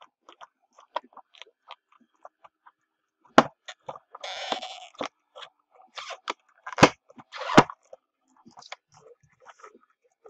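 Hands handling and opening a cardboard trading-card hobby box: scattered small clicks and rustles, a scraping slide about four seconds in, and three sharp knocks, the last two close together.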